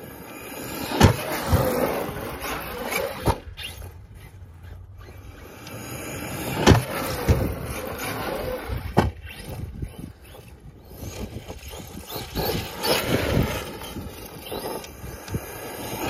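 Traxxas Sledge RC monster truck's brushless electric motor whining and revving as it speeds over grass, with several hard knocks from the truck hitting the wooden ramp and landing. The loudest knock comes about two-thirds of the way through, and another follows about two seconds later as it comes back down.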